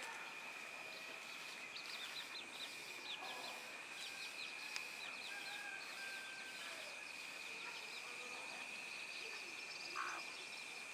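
Faint outdoor ambience: a steady high-pitched insect drone, with short runs of rapid high chirps coming and going over it.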